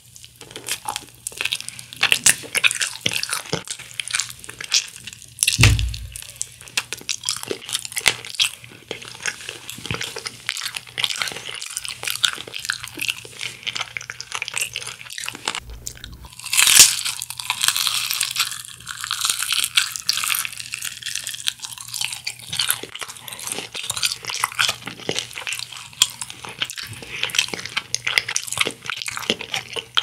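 Close-up crunching and chewing of crispy honey-glazed Kyochon Honey Combo fried chicken: a steady run of crackly bites and chews, with the loudest crunchy bite a little over halfway through and two brief dull thumps.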